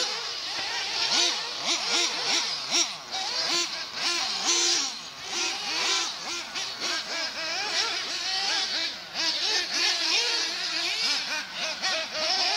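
Several small nitro engines of 1/8-scale radio-controlled off-road buggies, including a Kyosho MP9, revving up and down over and over as the cars lap the track, their high-pitched whines overlapping.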